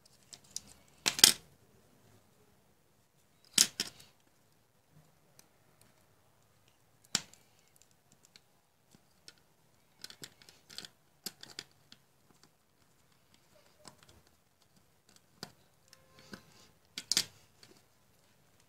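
Sporadic sharp clicks and scrapes from handling a small circuit board, wires and a soldering iron on a tabletop during soldering. The loudest come about a second in and near four, seven and seventeen seconds, with a quick run of lighter clicks around ten to eleven seconds.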